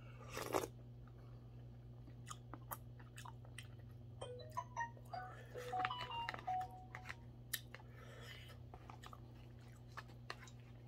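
A mouthful of mackerel porridge slurped and chewed about half a second in, then a metal spoon clicking and scraping against a plastic takeout tray, with a run of short squeaky tones in the middle as it scrapes the tray out.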